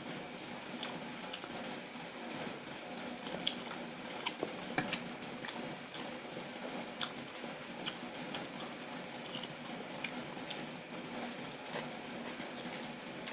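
Fingers squishing through a plate of oily chicken noodles and mouth sounds of chewing and slurping, with scattered short wet clicks and smacks over a steady low hum.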